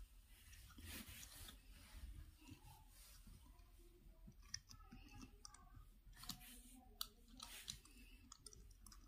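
Faint, scattered clicks and scrapes of hands bending and fitting copper wires at the terminals of a plastic switchboard with 5-pin sockets.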